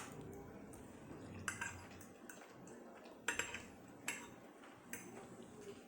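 Cutlery clinking and scraping against a plate, a handful of short clicks spread through a few seconds of eating.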